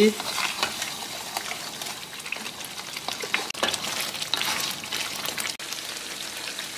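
Thick ground dried-chilli sambal paste sizzling and bubbling in an aluminium wok, stirred with a spatula that clicks and scrapes against the pan. The paste is being cooked down until the chilli is done.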